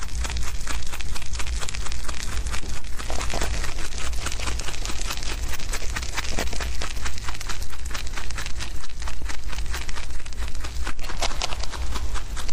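Young rabbits chewing fresh grass close up: a rapid, continuous crunching of many quick clicks, over a steady low hum.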